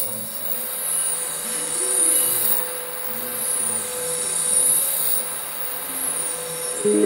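Beatless passage of an electronic industrial track: a steady drone under a high, hissing filter sweep that rises and falls about every two and a half seconds, the whole swelling and fading in slow waves.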